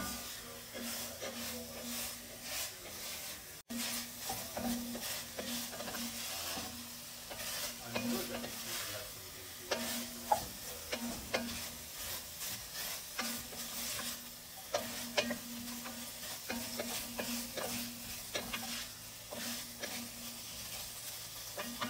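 Green beans and onion sizzling in an enamelled pot while a wooden spatula stirs and tosses them. The spatula scrapes and clacks against the pot again and again.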